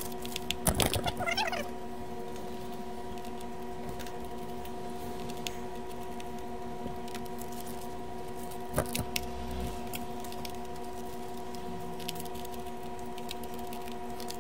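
Knocks and clicks of a screwdriver and hands working on a digital mixing console's metal case as its screws are removed: a cluster of loud knocks in the first second and a half, a sharp click about nine seconds in, and light ticks between. Under them runs a steady chord of held tones.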